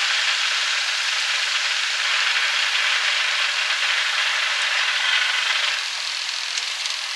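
Steady rushing cockpit noise of a Jabiru-engined Europa XS light aircraft, airflow with the engine throttled back to idle, as it floats in ground effect during the landing flare. The noise eases a little about six seconds in.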